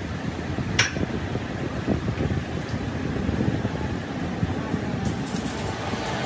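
Steady mechanical running noise of workshop machinery, with one sharp click about a second in.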